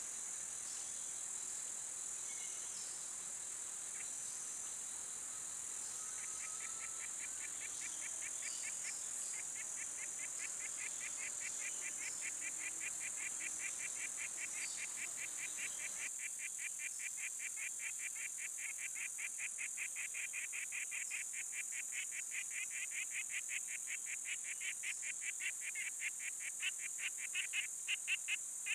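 Tropical forest ambience: a steady high-pitched insect drone, joined a few seconds in by a fast, pulsed chirping call that grows louder toward the end.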